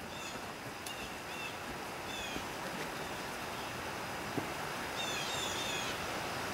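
Outdoor ambience: a steady hiss with a few short, falling bird chirps, one cluster of them about five seconds in.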